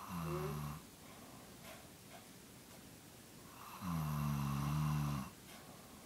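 Elderly woman snoring in her sleep: a short snore at the very start, then a longer, louder snore lasting about a second and a half, starting nearly four seconds in.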